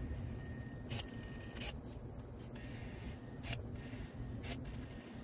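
A cordless caulking gun pressing marine sealant into screw holes. A faint high whine breaks off for about a second and then resumes, with a few short, sharp clicks.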